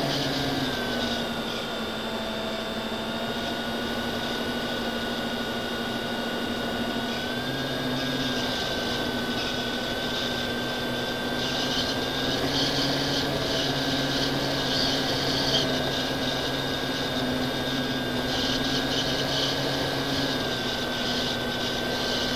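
An FPV model aircraft's motor and propeller heard from on board: a steady whine that steps a little up and down in pitch with the throttle, over rushing air noise that grows in patches in the second half.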